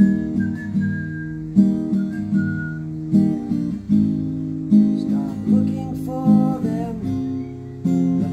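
Steel-string acoustic guitar strummed in a steady rhythm, with a whistled melody over it for the first couple of seconds. A voice then sings along over the strumming in the second half.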